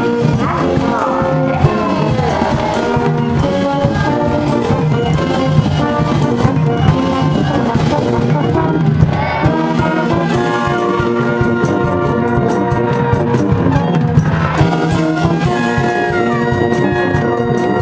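Brass band playing a cheering tune, trumpets carrying the melody over a steady drum beat.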